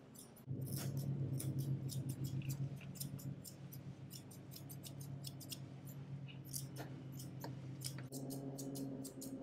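Curved grooming shears snipping through long dog fur around a paw: quick, irregular crisp snips, several a second, over a low steady hum.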